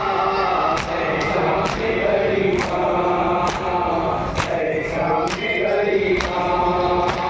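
Men's voices chanting a noha, a Muharram lament, together. Rhythmic matam runs through it, open hands striking chests about twice a second.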